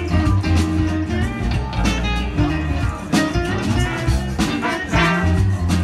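Live band playing: electric guitar, bass and drums, with trumpet and trombone coming in partway through.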